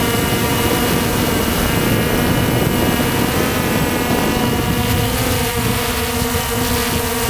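Walkera TALI H500 hexacopter's electric motors and propellers whining steadily in flight, heard from the onboard camera with rushing air over the microphone. The motor pitch shifts slightly about five seconds in.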